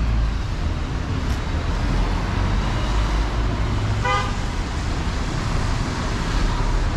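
Street traffic with a steady low engine rumble close by, and one short vehicle horn toot about four seconds in.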